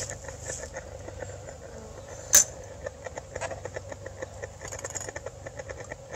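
The propane torch of an oxalic acid vaporizer burning with a steady hiss and irregular crackling ticks. A single sharp click comes about two and a half seconds in.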